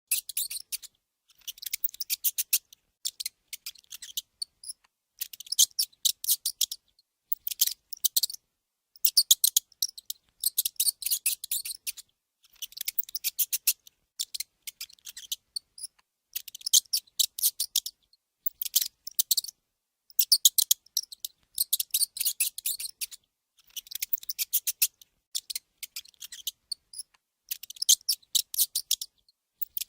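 Mouse squeaking: rapid, high-pitched chittering squeaks in bursts of about half a second to a second and a half, with short pauses between.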